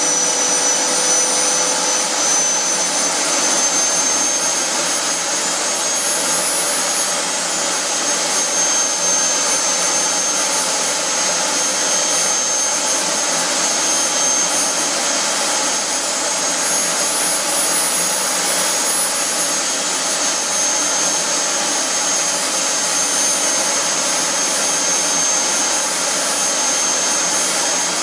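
JetCat P-160 model turbine engine in an RC F-4 Phantom running steadily on its first run: an even jet rush with steady high-pitched whine tones.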